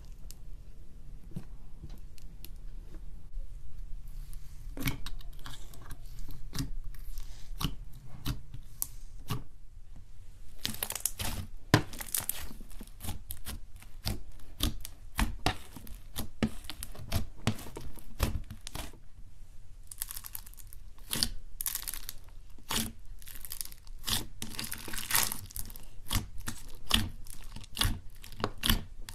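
Hands squishing and kneading slime, with dense crackling and popping from air pockets breaking, in irregular clusters of sharp clicks that come thickest partway through and again late on.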